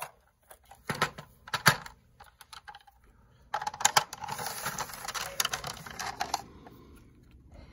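Hard plastic clicking: a green PCGS slab storage box being opened, with a few sharp clicks, then the graded coin slabs inside clattering against each other in quick succession as they are fingered through for about three seconds.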